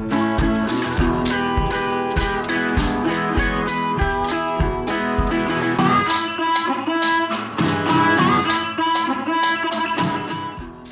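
Background music led by plucked guitar, with a steady low beat through the first half, easing off near the end.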